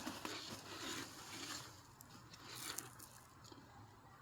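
Faint rustling and a few light clicks from rocks and their packing being handled, fading away in the second half.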